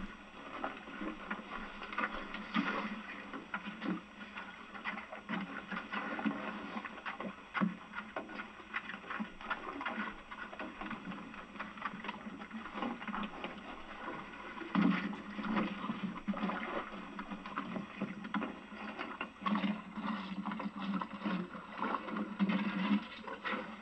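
Irregular knocking and clattering from oyster tonging off a small boat: wooden tong handles and catch knocking against the boat. There are louder stretches about fifteen seconds in and again near the end.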